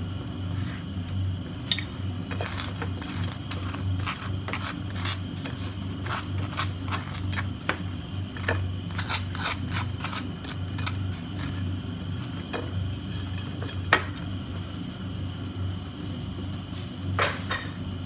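Table knife scraping and spreading across crunchy toasted bread, a run of short scratchy strokes with a few sharper clinks of the knife against the plate, over a steady low hum.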